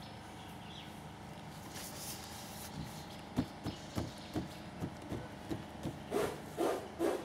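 Chimpanzee's fingers dabbing and smearing paint on a canvas: a run of light taps and knocks, about two or three a second, starting a few seconds in, with a few louder bursts near the end over a steady faint hum.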